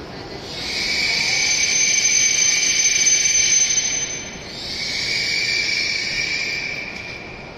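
Two long swells of air hissing from an E7 series Shinkansen train standing at the platform, each with a thin high whistle in it; the first lasts about three and a half seconds, the second a little shorter.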